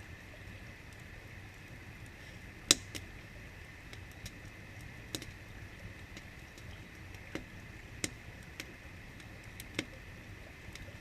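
Night-time outdoor ambience: a steady high-pitched drone with a few scattered sharp clicks, the loudest about three seconds in.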